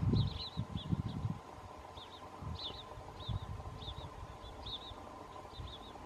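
European pied flycatcher calling: short high chirps, often in quick pairs or threes, repeated every second or so. A low rumble sits underneath, loudest in the first second and a half.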